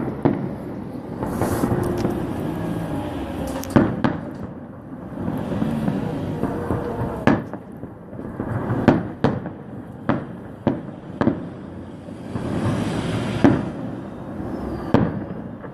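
Fireworks salute going off: a string of sharp bangs, several in quick succession around the middle, with a stretch of crackling hiss from a burst shortly before the end.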